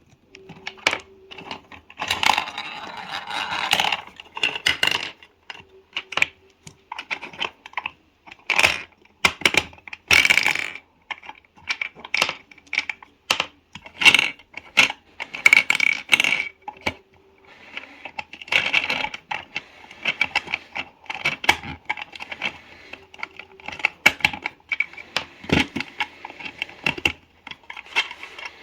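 Toy gumball machines being played: a busy run of sharp clicks and rattles as coins and gumballs drop and roll through the machines.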